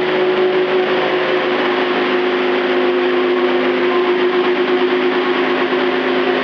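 Engine of a homemade bulldozer, built from junk parts, running steadily with an even, unchanging drone.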